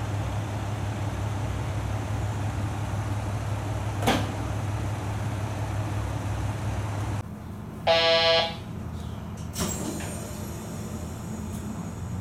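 KiHa 185 diesel railcar idling, a steady low hum with a single knock about four seconds in. The hum then drops away and a train horn gives one short blast of about half a second, followed by a lighter knock.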